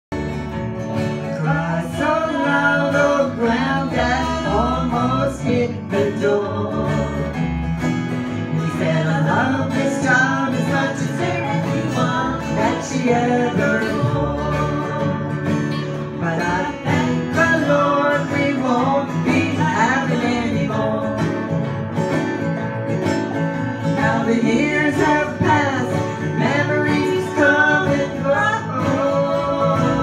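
Acoustic string band of several acoustic guitars and a banjo playing a song together, strummed steadily with a country, bluegrass feel.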